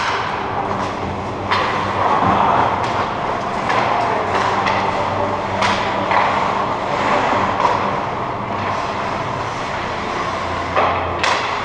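Ice hockey play: skates scraping and carving the ice over a steady low hum, with sharp knocks of sticks and puck every few seconds.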